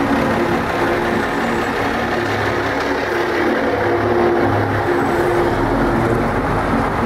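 Diesel engine of an M925A2 6x6 military cargo truck (Cummins 6CTA8.3 six-cylinder) running steadily, with small shifts in pitch.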